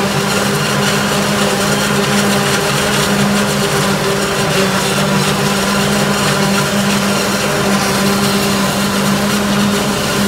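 Türk Fiat 480 tractor's diesel engine running steadily under load while powering a Çelmak maize silage harvester, with the whirring of the harvester's cutting and chopping gear mixed in as it takes in standing corn stalks.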